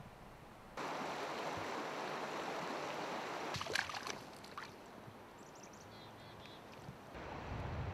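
River water rushing over a shallow rocky bed, with a few sharp splashes about four seconds in. The flow then runs quieter, with a few faint high chirps, until a low rumble comes in near the end.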